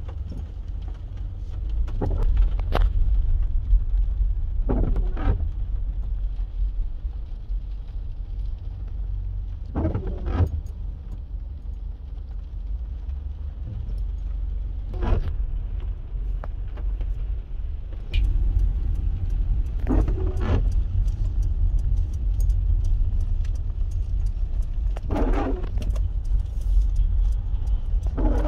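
Car cabin noise while driving, a steady low rumble of engine and tyres. Over it come short swishing sweeps about every five seconds, typical of windscreen wipers on an intermittent setting in rain.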